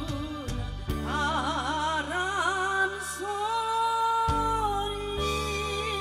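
A woman singing a Korean popular song into a microphone over musical accompaniment, her voice wavering with vibrato and then holding one long note. The note ends past the middle, and the accompaniment plays on alone.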